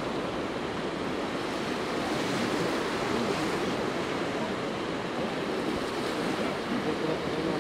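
Small sea waves washing steadily onto a shallow shore, a continuous rush of surf with some wind.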